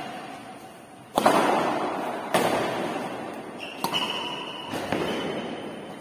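Badminton rackets hitting a shuttlecock back and forth in a rally: about five sharp strikes roughly a second apart, each ringing out in a large echoing hall. The strike about a second in is the loudest.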